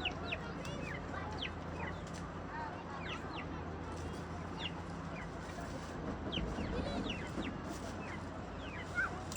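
Birds chirping, many short falling peeps scattered throughout, over a steady low hum.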